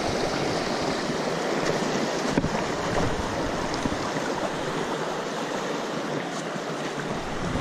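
Small rocky stream rushing and splashing over stones, a steady water noise, with a faint click or two about two seconds in.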